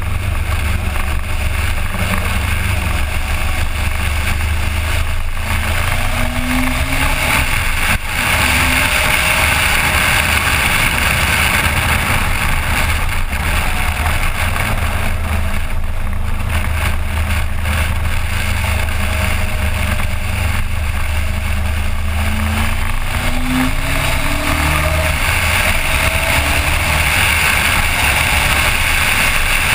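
Heavy wind rushing over a GoPro on a moving Suzuki GSX 1400 motorcycle. The bike's inline-four engine is faintly heard underneath, its pitch rising and falling with the throttle. There is a brief dip in the noise about eight seconds in.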